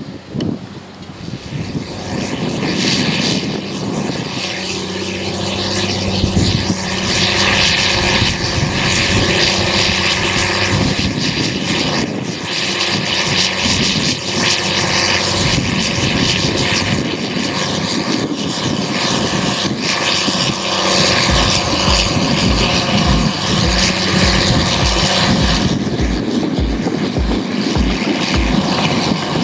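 Cat Challenger MT765C rubber-tracked tractor's diesel engine working steadily under load as it pulls a Väderstad Carrier disc cultivator through the soil, with a rushing noise from the discs and tracks. The drone builds over the first few seconds as the tractor passes.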